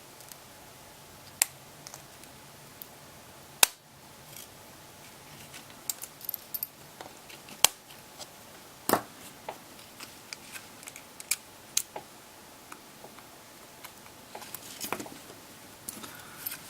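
Small sharp clicks and snaps of a smartphone's internal parts being worked with a small flathead screwdriver as its flex-cable connectors are unclipped from the board. Two louder snaps come about three and a half and eight seconds in, with a run of small ticks and rustling near the end.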